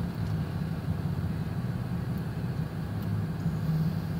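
Truck engine idling, heard from inside the cab with the heater running: a steady low hum.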